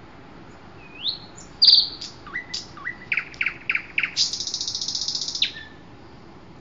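A bird singing: a rising whistle, then a run of quick high notes that slide downward, then a buzzy trill lasting about a second, ending with one short note.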